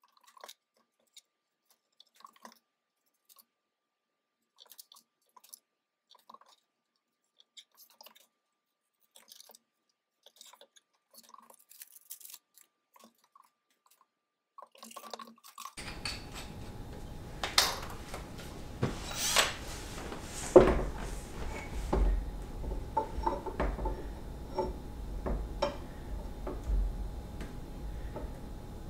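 Near silence with faint scattered ticks for about the first half. Then steady room noise comes in, with scattered knocks and metallic clinks from tools and door hardware being handled.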